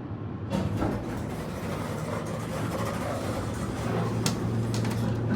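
Dover-modernized Otis hydraulic elevator running: a steady low hum with cab rattle that strengthens toward the end, and a few sharp clicks near the end.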